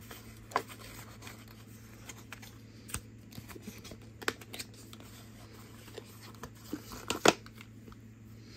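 Scissors snipping and clicking as a powder foundation's packaging is cut open, with light handling rustle. The snips are scattered and the loudest comes near the end.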